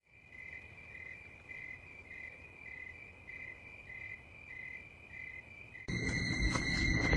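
Insect chirping in a steady high-pitched pattern, about two chirps a second. About six seconds in, a louder sound with sustained high tones cuts in.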